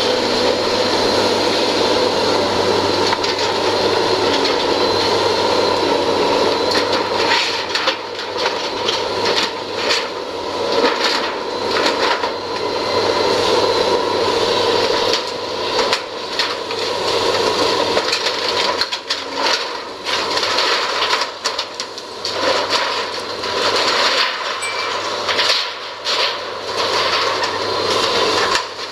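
Liebherr hydraulic excavator running steadily while it tears into a metal-clad building, with repeated cracks and crunches of the structure breaking up that come thick and fast from about seven seconds in.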